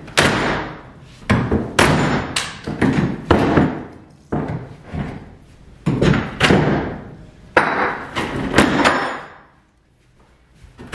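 Repeated hammer blows as wooden mantel trim (crown moulding and MDF) is knocked and pried off a fireplace surround: a string of sharp knocks, about one or two a second, falling quiet for a moment near the end.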